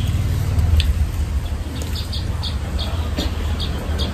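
A small bird chirping repeatedly, with short high chirps about three a second starting about a second in, over a steady low hum.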